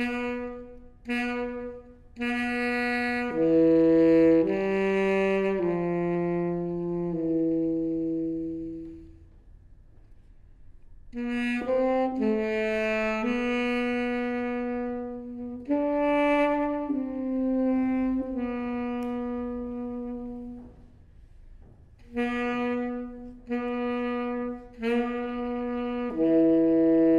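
Solo saxophone playing a slow line of single held notes, opening with two short notes, with brief pauses about ten and twenty seconds in.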